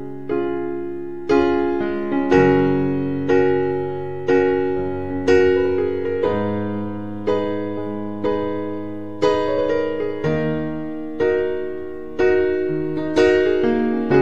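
Slow instrumental background music on a piano-like keyboard: chords struck about once a second, each ringing and fading before the next.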